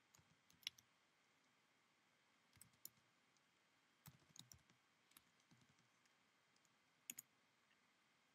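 Faint keystrokes on a computer keyboard, coming in short scattered bursts of a few keys each, as a terminal command is typed.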